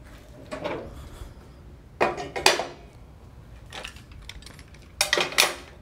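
Metal parts of a 1954 Shopsmith Mark V clanking and rattling as they are fitted onto the machine's table to set it up as a table saw: several separate bursts of clatter, the loudest about two seconds in and another near the end.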